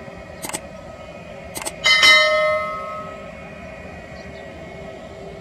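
Two mouse-click sound effects, then a bright bell chime about two seconds in that rings out for about a second: the sound of a subscribe-and-bell-notification animation. Under it runs the steady whine of the Airbus A321's jet engines.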